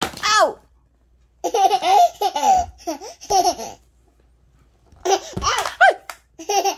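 A one-year-old baby laughing in several high-pitched bursts with short pauses between them.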